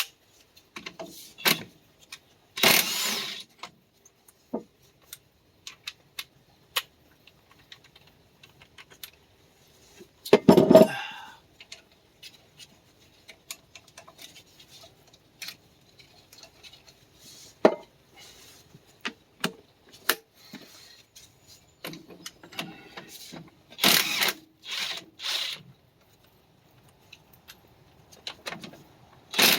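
Metal tools clinking and clanking during work on a tractor's front-axle bolts: scattered sharp clicks and knocks, with a few short, louder rattling bursts.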